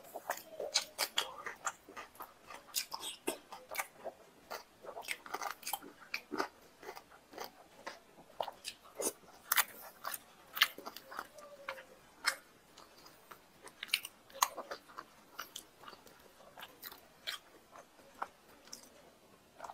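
Close-up chewing and wet lip smacking of a person eating luchi dipped in mutton curry by hand, with many irregular sharp mouth clicks, several a second.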